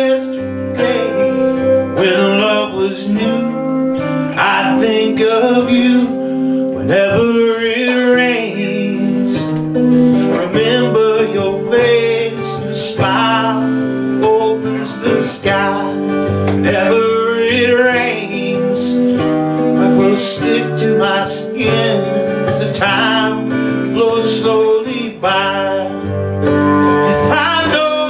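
A song played live by a small band: a man singing lead over a strummed acoustic guitar and an electric guitar.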